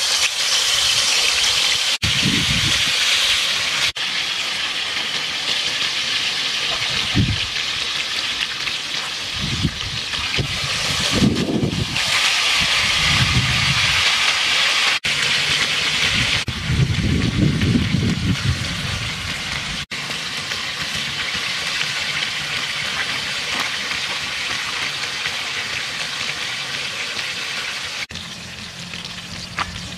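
Fish steaks frying in hot oil in a wok: a steady, loud sizzle that eases slightly near the end, with a few short low rumbles over it.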